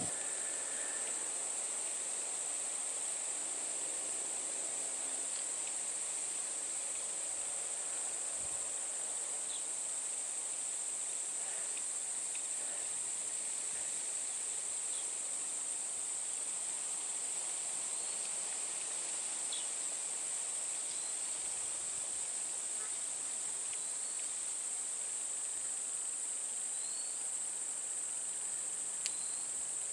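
Insects droning in a steady high-pitched chorus, with a few short rising bird chirps in the second half and a single click near the end.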